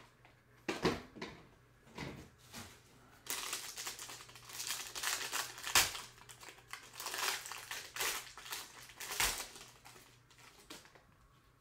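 Foil trading-card pack wrapper being crinkled and opened by hand: a few scattered rustles, then a long run of dense crinkling with a few sharper snaps, fading near the end.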